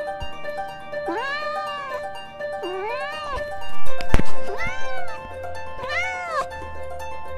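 A cat meowing into a clip-on lavalier microphone held at its mouth: four separate rising-and-falling meows. There is a loud knock and bump on the microphone about halfway through as the cat bites it. Background music plays under the meows.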